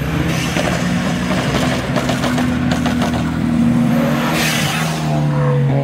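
Performance cars accelerating hard past the listener, engines revving with a rush of exhaust noise that peaks about four and a half seconds in, then the pitch drops as they go by.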